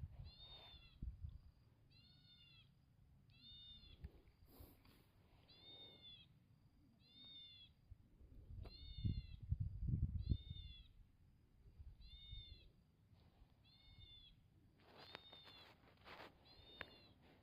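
An animal gives a short, high, arched call over and over at an even pace, about every second and a half, faint in the distance. A few low rumbles of handling noise sound partway through.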